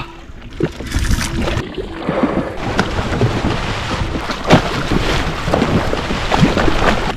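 Wind buffeting the microphone and water sloshing against a jet ski's hull on open ocean, with a few sharper slaps, the loudest about four and a half seconds in.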